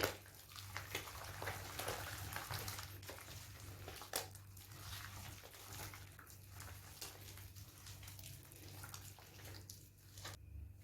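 Faint wet squelching of eggs being mixed into creamed butter and sugar in a bowl, with a sharp click at the start and another about four seconds in, over a steady low hum.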